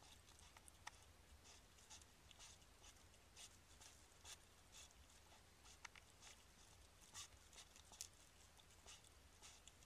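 Faint, irregular rustling and crackling of dry straw as a hedgehog shifts and grooms in its nest, with a few sharper crackles, over a low steady hum.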